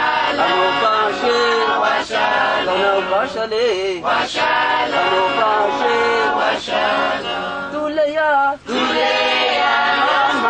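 A choir singing, with men's voices leading.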